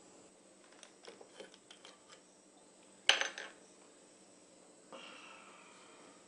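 Glass liquor bottle and tumbler handled on a wooden side table: a run of light clicks, then one sharp, loud glassy clink about three seconds in, and a softer ringing clink near five seconds as the bottle is tipped toward the glass.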